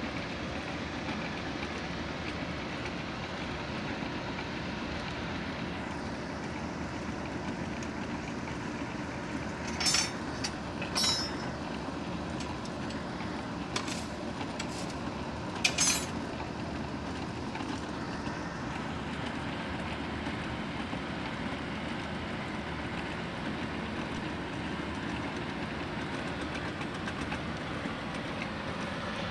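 Blacksmith's forge running with a steady rushing noise while steel heats in the fire. A few short metallic clinks and scrapes between about ten and sixteen seconds in, as tongs and steel bars are handled at the forge.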